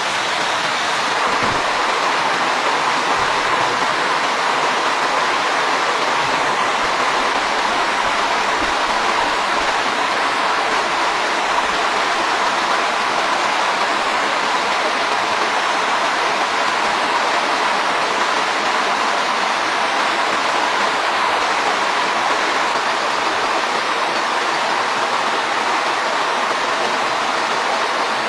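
Steady rushing of water, even and unbroken throughout.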